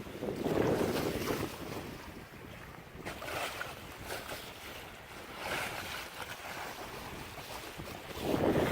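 Water rushing and splashing along a moving sailboat's bow, with wind buffeting the microphone. The water swells louder about a second in and again near the end, with smaller surges between.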